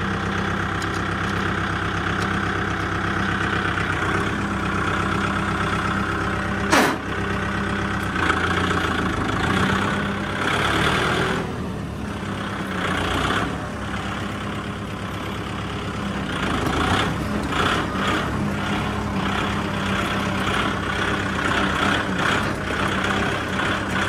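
Tractor's diesel engine running steadily, with a single sharp click about seven seconds in. After that the engine sound becomes rougher and less even.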